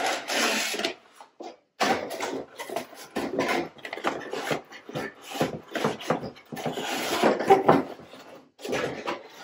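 Cardboard box and packing inserts rustling and scraping in irregular bursts as a flamingo lawn statue is pulled out of them, with short pauses about a second and a half in and near the end.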